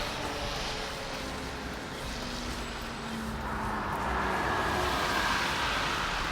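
A road vehicle going by: steady running and tyre noise that swells about four seconds in.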